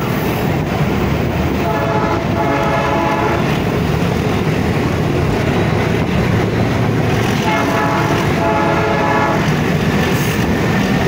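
Moving train heard from on board: a steady running rumble of wheels and diesel. The Alco RS8 locomotive's horn sounds two short blasts about two seconds in, and two more about eight seconds in.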